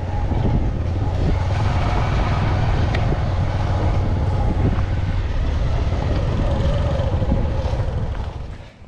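Steady rumble of a running vehicle, which drops away sharply near the end.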